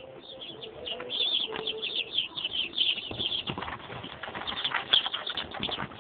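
A brood of young domestic chicks peeping continuously, many rapid high chirps overlapping.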